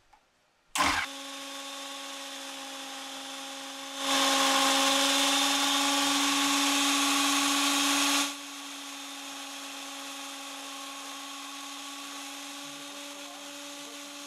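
GB National ST 830 food processor's motor switched on with a click about a second in, then running with a steady hum. From about four to eight seconds in it grows much louder and noisier as a cucumber is pushed down the feed tube onto the spinning slicing disc, then drops back to the steady unloaded hum.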